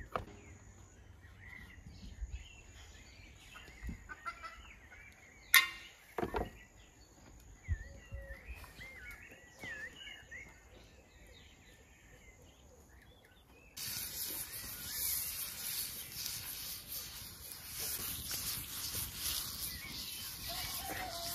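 Small birds chirping with a few sharp knocks, the loudest about a quarter of the way in. About two-thirds of the way through, a steady crackling hiss sets in as the iron saj griddle is wiped with a cloth.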